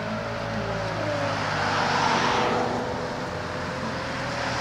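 Road traffic: a passing car's tyre and engine noise swells to its loudest about two seconds in, then eases.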